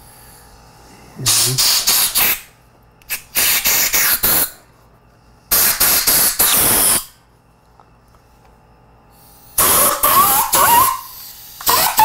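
Compressed-air blow gun fired in four short, stuttering blasts of about a second each, blowing air under a rubber handlebar grip to loosen it from the bar. The last blast carries a wavering squeal.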